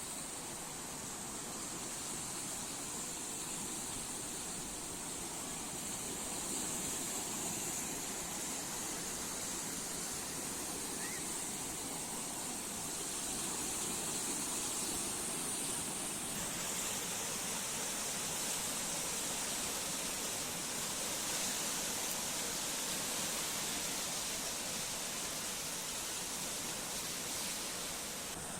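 Sea waves washing on the shore: a steady rush of surf that swells and eases gently.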